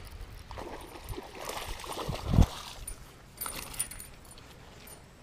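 Handling noises as a just-caught bass is landed: scattered clicks and rattles, with a heavy thump a little over two seconds in and a few sharp ticks later on.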